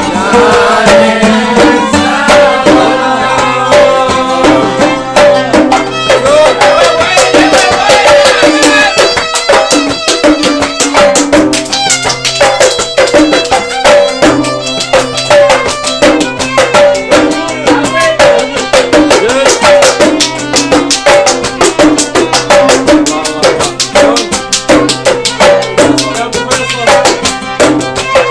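Instrumental passage of Gulf sawt music: bowed violins and a qanun play a wavering melody over a dense, steady beat of small hand drums.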